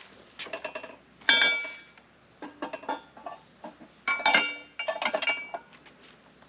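Metal mower wheel rim clinking and ringing against the steel post of a manual tire changer as it is set down and seated. Several metallic strikes, the loudest about a second in and again about four seconds in, with smaller rattles between.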